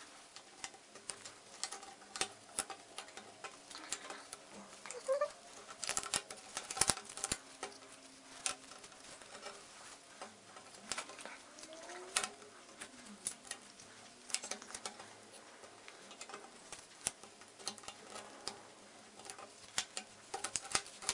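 Cardboard jigsaw puzzle pieces being handled and fitted into a frame puzzle: irregular light clicks and taps as pieces are picked up, dropped and pressed into place, with soft sliding between them.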